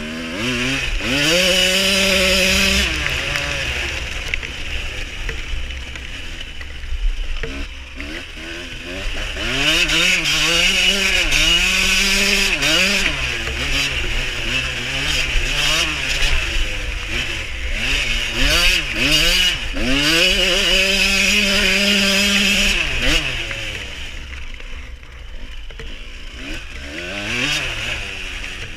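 1989 Yamaha YZ125's single-cylinder two-stroke engine racing off-road, revving up and backing off over and over as the throttle is worked. It is held high for a few seconds at a time, then eases off near the end, with low wind rumble on the microphone.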